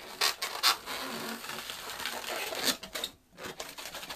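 Inflated latex twisting balloons (360s) rubbing and scraping against each other and the hands as they are handled and twisted, with a couple of sharp scrapes about a quarter and three-quarters of a second in and another near the end.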